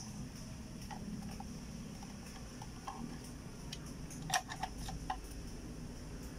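Small plastic clicks and taps from a refrigerator inverter board's wire-harness connectors being handled, with a quick cluster of sharper clicks a little past four seconds in, over a steady low hum.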